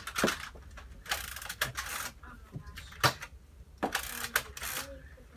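Nerf blaster being worked: sharp mechanical clicks and short sliding rasps. There is a click at the start, a rasp about a second in, two more clicks around three seconds in, and another rasp just after.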